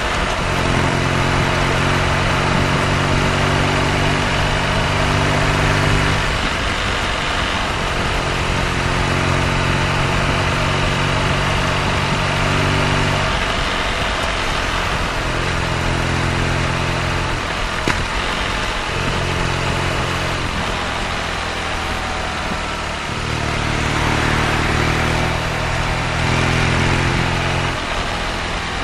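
BMW R nineT's air/oil-cooled boxer twin running, holding a steady note for several stretches of a few seconds each, with rougher, changing spells in between.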